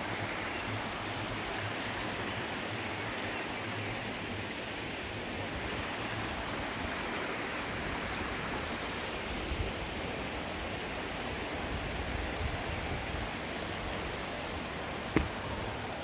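Shallow rocky stream running over stones, a steady rush and ripple of water. A single sharp click sounds near the end.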